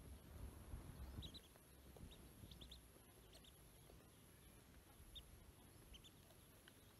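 Ducklings peeping faintly in short, scattered cheeps, a few close together at a time. A low rumble fills the first couple of seconds.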